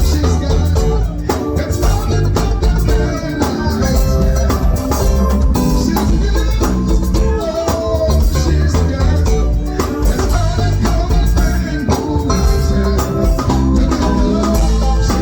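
Band music with a steady beat, heavy bass and guitar.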